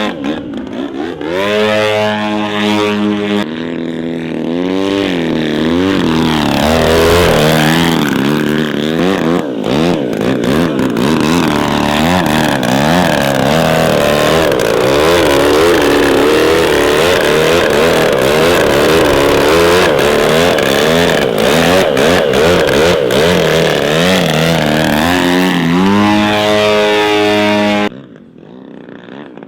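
Piston engine of a large radio-controlled model aircraft flying aerobatics, its pitch swinging up and down as the throttle and the plane's passes change. It cuts off abruptly near the end.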